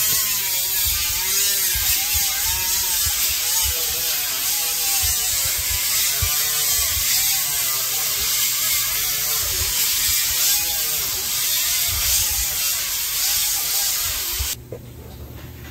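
Loud, steady hissing machine noise with a wavering tone and a few low knocks; it cuts off suddenly near the end.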